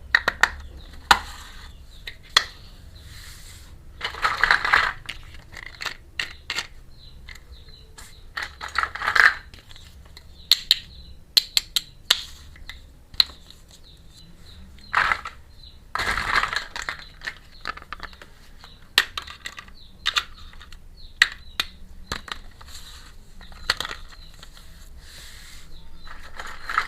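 Small plastic toy pieces clicking and tapping against each other, in irregular sharp ticks, with a few short bursts of rustling and crinkling packaging, as miniature kitchen toys are unboxed.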